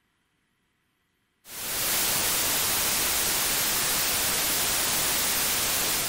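Synthetic white noise made from the decimal digits of pi, played back as a sound: a steady, even hiss that fades in quickly about a second and a half in.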